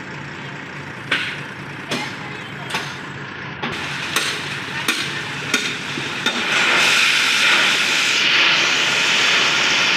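Heavy diesel vehicle engine running, with sharp knocks coming about every three-quarters of a second. From about six and a half seconds in, a louder, steady rushing noise rises over it.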